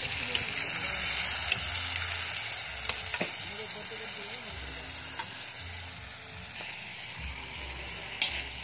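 Marinated chicken wings sizzling in a large metal wok as they are stirred with a metal ladle. The sizzle is strongest in the first half and eases a little later, with a few light ticks and one sharp click near the end.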